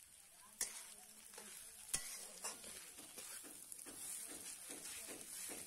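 A metal spatula stirring and scraping food in a metal wok as it fries, with a faint sizzle. Two sharp knocks of the spatula against the pan come about half a second and two seconds in, followed by scraping strokes about two or three a second.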